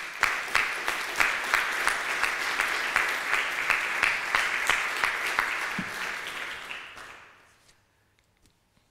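Audience applauding, the clapping fading away about seven seconds in.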